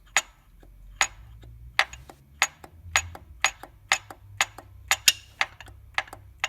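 Connecting rod of a 2.3 L MZR turbo engine being rocked by hand, clacking metal on metal at each end of its travel: sharp clicks, about one a second at first and quickening to about two a second. The play is the sign of a broken, failed rod bearing.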